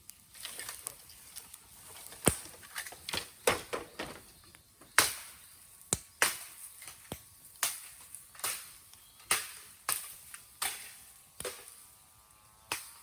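Raw green bamboo burning in a bonfire, crackling with a string of sharp cracks and pops, each followed by a brief hiss, roughly one a second. The bamboo is too green to burn well.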